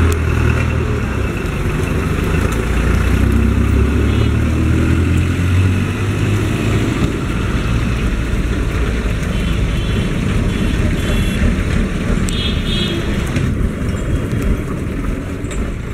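Road traffic noise with a motor vehicle's engine running close by; its low hum is strongest for the first several seconds, then fades into the steady street noise.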